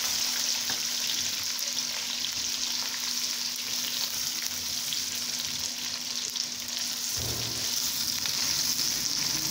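Sliced onions sizzling in hot ghee in a kadai, with a steady crackling hiss as they are stirred while they soften.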